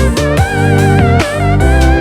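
Background music: electric guitar with a wavering lead line over a steady beat and bass.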